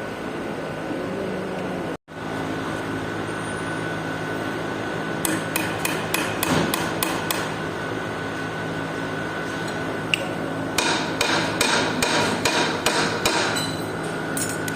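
Hammer strikes in two runs: about eight blows around five to seven seconds in, then a quicker run of about a dozen around eleven to fourteen seconds, over a steady mechanical hum.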